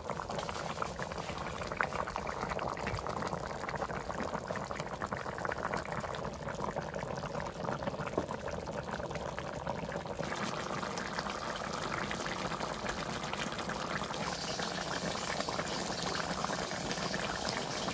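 Pork and potato curry boiling in an open metal kadai, a steady crackling bubble as the gravy cooks down to thicken. It gets a little louder and brighter about ten seconds in.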